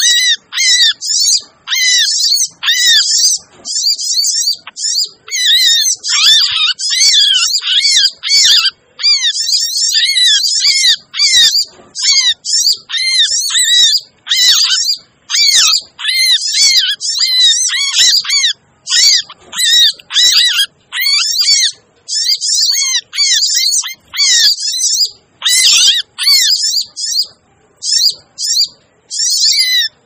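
Olive-backed sunbirds (sogon) chirping and twittering in rapid, high-pitched phrases with short breaks, a busy, noisy bird-lure call recording.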